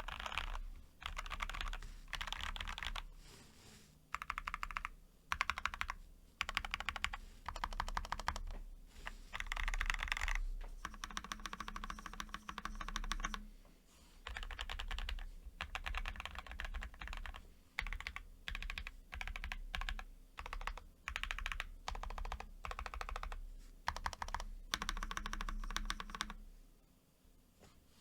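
Typing on a TES68 mechanical keyboard with lubed Gateron Box Ink V2 Pink linear switches and lubed stock stabilizers: fast runs of keystrokes in bursts with short pauses between, stopping near the end.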